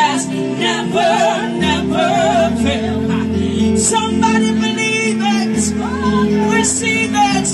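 Women singing wordless gospel runs with heavy vibrato into microphones over sustained chords on a Yamaha Motif keyboard.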